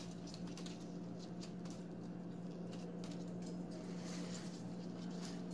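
Soft rustling and light pattering of rose petals dropped and stirred by hand in a bowl, over a steady low hum.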